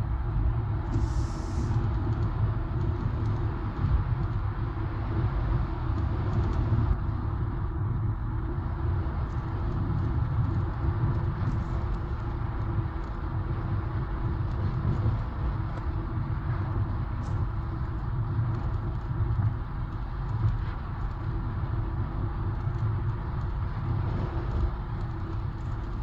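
Car driving at steady speed on an asphalt highway: an even low rumble of tyres on the road and engine noise, with a brief hiss about a second in.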